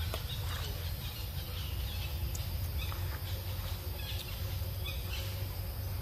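Outdoor ambience: a steady low rumble with faint, scattered short high chirps or clicks.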